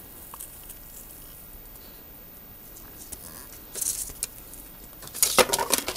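Plastic model-kit sprues and packaging being handled: faint clicks and a short rustle about four seconds in, then louder rustling and crinkling near the end.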